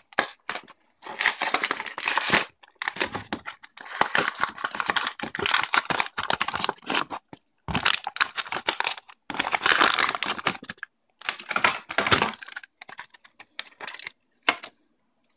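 A Hot Wheels blister-card package being torn open by hand: the cardboard backing card ripping and the plastic blister crinkling, in irregular bursts. After about twelve seconds the tearing stops, leaving a few lighter rustles.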